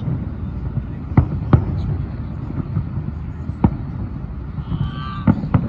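Distant aerial fireworks shells bursting, heard as five sharp bangs at uneven intervals over a steady low rumble.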